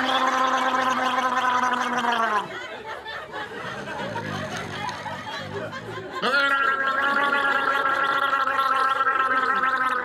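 A voice holding one long, steady note, which breaks off about two and a half seconds in into a quieter, rough low sound, then slides up back into the same held note about six seconds in.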